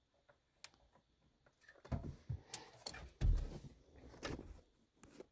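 Clicks, clacks and knocks of a factory car radio head unit being handled while its stubborn rear connector is worked loose: a few seconds of plastic and metal clatter with dull thuds, the loudest knock about three seconds in, and a single click near the end.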